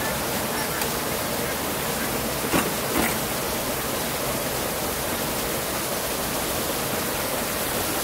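A steady rushing hiss, with two short knocks about two and a half and three seconds in.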